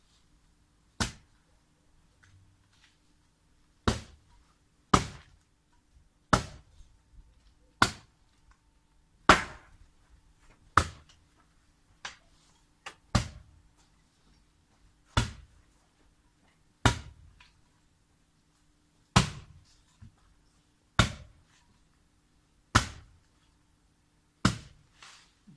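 Repeated heavy blows of a hand tool, about sixteen strikes at an uneven pace of roughly one every one to two seconds, each a sharp thud that dies away quickly.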